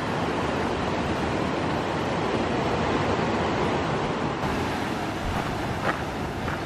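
Ocean waves washing and breaking over a rocky shore, a steady rush of surf with wind on the microphone.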